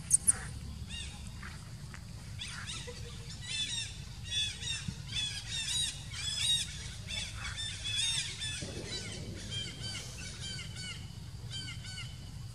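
Young macaque screaming in distress while another monkey grabs and wrestles it: a rapid run of short, shrill, arching squeals, several a second, loudest in the middle and thinning out toward the end, with a few sharp squeaks right at the start.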